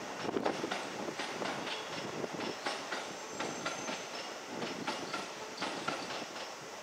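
Keisei electric train wheels clacking irregularly over rail joints and points as the train pulls away, the clatter easing slightly as it goes.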